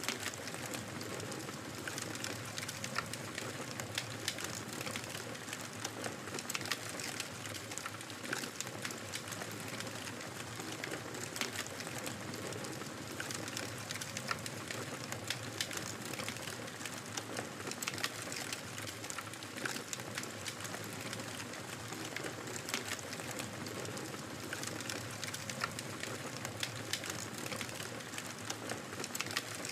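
Wood fire crackling steadily: many small sharp pops and snaps, irregular and close together, over a soft constant rush.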